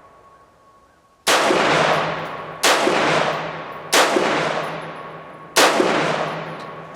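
Four semi-automatic shots from a Bear Creek Arsenal BC-15 AR-15-style rifle with a 16-inch barrel, firing 62-grain ammunition, fired roughly a second and a half apart. Each shot is followed by a long echoing decay. These are the last rounds of a 30-round function test that ran with no stoppages.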